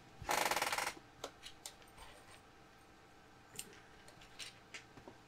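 A brief rattle, about half a second long, near the start, then scattered light clicks and taps of small hard items being handled.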